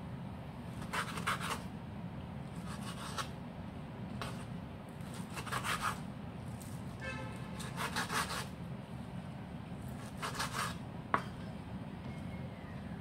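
Chef's knife cutting raw beef into cubes on a wooden cutting board: short runs of quick knocks and slicing scrapes every second or two, over a steady low hum.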